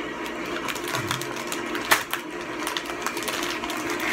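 Plastic candy wrapper crinkling and crackling as it is cut open, with irregular sharp crackles, the loudest about two seconds in. A steady low hum runs underneath.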